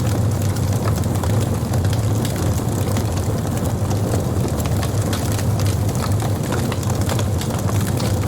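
Wood burning on a campfire: frequent sharp crackles and pops over a steady low rumble of the flames.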